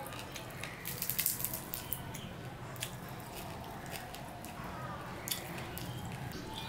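Fingers mixing boiled rice with fried young hilsa (jatka) fish on a ceramic plate: soft, wet squishing with crackly clicks, densest about a second in and then a few single clicks later on.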